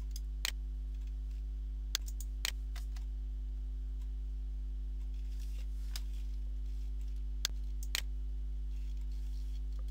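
Computer mouse clicks in three pairs, about half a second apart, over a steady low electrical hum.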